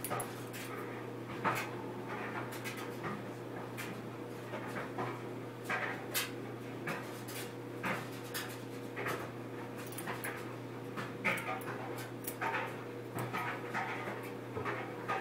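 Hair-cutting scissors snipping hair in short, irregular clicks, over a steady low hum. The scissors are dull enough to need sharpening.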